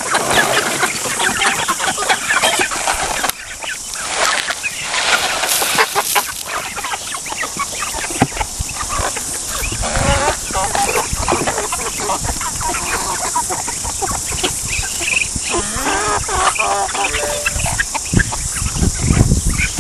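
A flock of chickens clucking busily and without a break.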